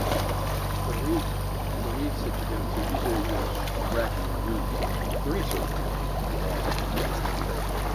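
A steady low hum, with faint, distant voices talking now and then over it.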